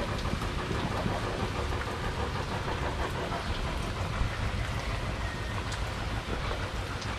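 Steady rain falling, an even hiss over a low rumble with no distinct events.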